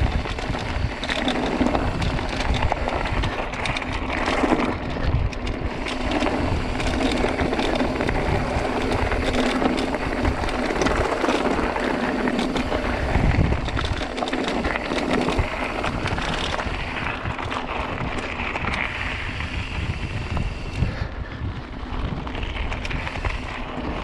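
Mountain bike descending a trail of loose stones: tyres crunching over rock, with irregular knocks and rattles from the bike, and wind buffeting the microphone.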